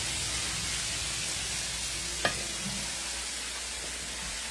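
Shrimp frying in oil in a pan: a steady sizzling hiss, with one sharp click a little over two seconds in.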